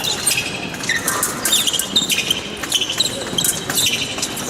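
Épée fencers' footwork on the piste: shoes squeaking and stamping, with many sharp clicks and knocks.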